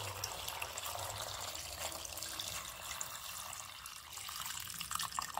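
Water pouring in a steady stream into an aluminium pressure cooker full of dal and chopped vegetables, splashing into the rising water. A few brief sharper sounds come near the end.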